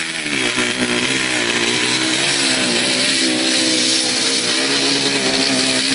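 Motorcycle engine held at high revs while the rear tyre spins in a smoky burnout, the revs dipping briefly about the start and then holding steady.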